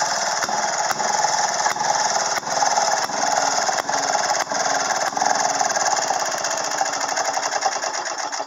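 1935 Maytag 3/4-horsepower single-cylinder two-stroke gas engine running fast with a rapid, steady clatter. Near the end it starts to slow and fade as the spark plug is shorted out to stop it.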